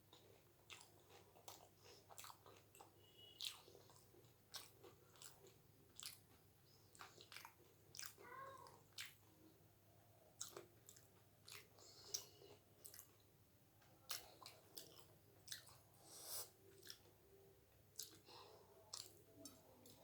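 Close-miked eating of doi fuchka: faint, irregular crunching of the crisp puri shells and chewing of the yogurt-and-potato filling, heard as many short clicks and smacks.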